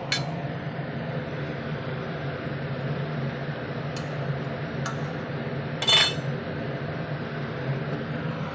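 Metal utensil clinking against a cooking pan four times, the loudest and longest-ringing about six seconds in, over a steady hiss of pakoras frying in oil.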